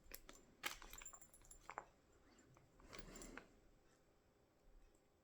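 Faint clicks, a few in the first two seconds, then a short soft rustle about three seconds in: small items being handled close by.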